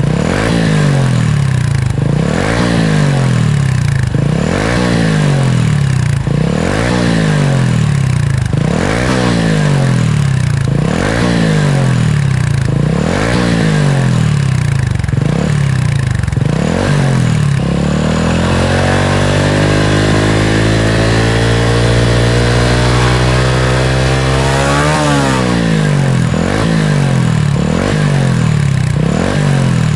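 Honda Super Cub 110's single-cylinder four-stroke engine breathing through a BEAMS R-EVO carbon aftermarket silencer, revved in quick blips about once a second. About two-thirds through, the revs climb steadily in one long pull, then drop back sharply to lower, steadier running.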